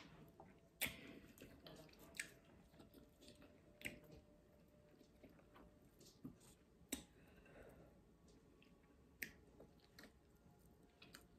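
Faint close-up eating sounds: quiet chewing with a handful of sharp clicks of chopsticks against the plate and bowl, the loudest about a second in.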